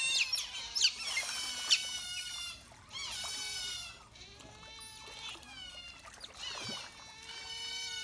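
Otters calling: a rapid string of high-pitched squealing chirps, loudest in the first three seconds, then fainter calls from about four seconds in.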